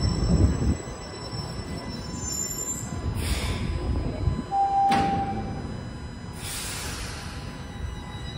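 Toronto Rocket subway train standing at the platform: a low rumble in the first second, then two hisses of air about three and six seconds in, with a sharp click and a short steady tone near the middle.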